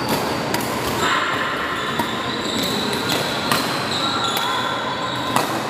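Badminton rally: irregular sharp racket hits on the shuttlecock and footfalls, with short high squeaks from shoes on the court floor.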